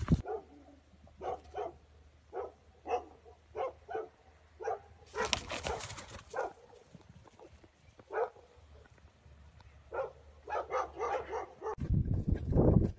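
A dog barking and yapping repeatedly in short, irregular yelps, with a quick cluster of yaps near the end. A low rumbling noise comes in just before the end.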